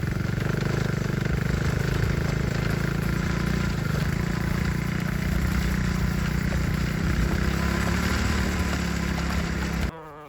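A small engine running steadily at an even speed, cutting off abruptly near the end.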